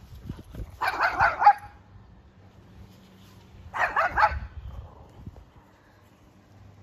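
A dog barking in two short runs of quick, sharp barks, one about a second in and another about four seconds in.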